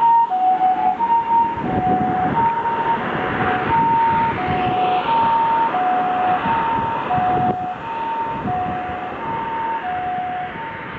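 Japanese ambulance two-tone hi-lo siren, alternating steadily between a higher and a lower note about every two-thirds of a second, over the rumble of the vehicle moving off. It fades a little near the end.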